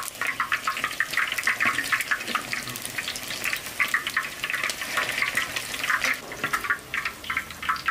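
Large pork meatballs deep-frying in hot oil, a steady dense sizzle with constant fine crackling and spitting.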